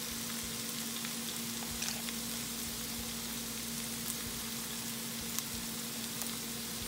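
Diced potatoes and green beans sizzling gently in oil in a frying pan on low heat: a steady hiss with a few faint ticks, over a steady low hum.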